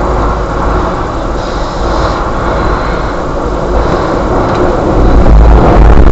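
Car engine and road noise heard from inside the car through a dashcam, creeping forward in traffic; about five seconds in it grows louder, with a low rumble, as the car speeds up and pulls away.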